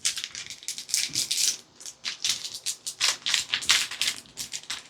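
Plastic wrapper of a Nature Valley crispy wafer bar crinkling and crackling as it is torn open and pulled back, with a brief lull about two seconds in.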